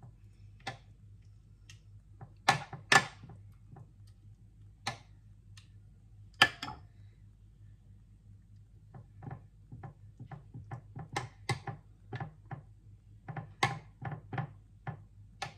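Metal spoon knocking and clinking against glass dishes while white sauce is scooped and spread: a few sharp knocks in the first seven seconds, then a run of quicker, lighter taps.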